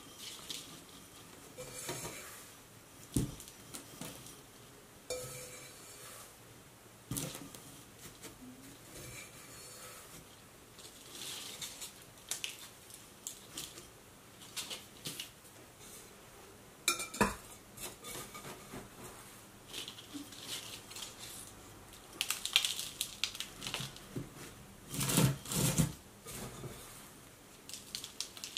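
Hands scooping and pressing potting soil into a small terracotta pot, with soft rustling of soil and leaves. Now and then the pots clink and knock against each other and the table, the sharpest knocks about three seconds in, near the middle and near the end.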